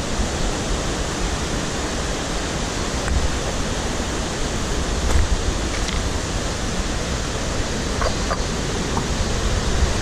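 Mountain river rapids rushing over boulders: a steady, even rush of water.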